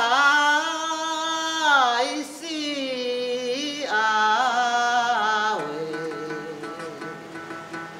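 Hengchun folk song sung in Taiwanese Hokkien by an elderly voice, with long held notes that slide and bend between pitches. It is accompanied by a long-necked Taiwanese moon lute (yueqin). The voice is strongest in the first half and gives way to quieter, lower held notes after about five and a half seconds.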